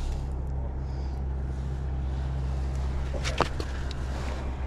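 Steady low outdoor hum, with a few light clicks a little over three seconds in.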